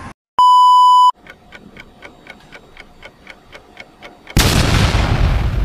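Outro sound effects: a loud electronic beep, then clock-like ticking about five a second, then a sudden loud boom about four seconds in that slowly fades.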